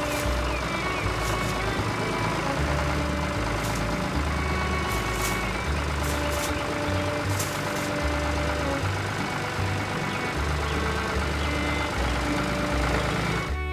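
Steady running noise of a combine harvester engine, as a cartoon sound effect, laid over background music with held notes and a repeating bass line. The machine noise starts and stops abruptly.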